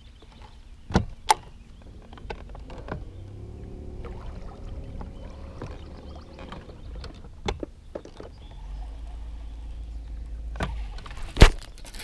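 Electric trolling motor of a bass boat humming low and steady, with a faint whine. Scattered sharp knocks and clicks from the angler's gear and the boat deck come over it; the loudest is a single knock about a second before the end.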